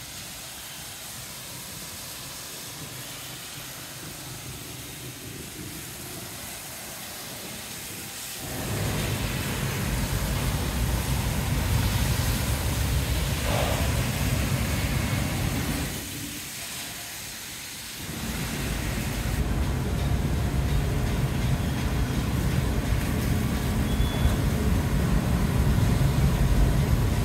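Street noise after rain: a steady hiss, joined about eight seconds in by a heavy low rumble that drops out for a couple of seconds and then returns.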